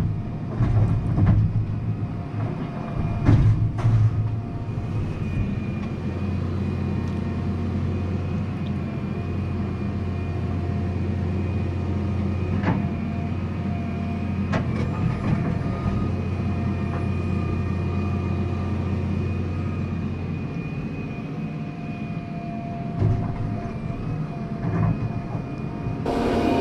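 Excavator diesel engine running steadily, with a faint hydraulic whine above it and several knocks in the first few seconds as the bucket handles broken concrete. The engine note drops about three-quarters of the way through.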